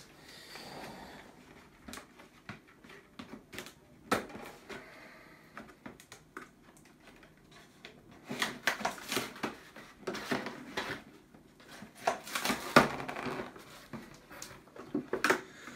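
Cardboard box being handled and opened: scraping, rustling and light knocks of the cardboard, growing busier and louder from about eight seconds in.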